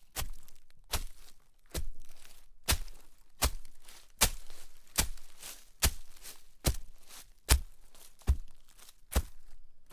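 Footsteps crunching through shallow snow at a steady walking pace, about five steps every four seconds, each a short crunch that dies away quickly.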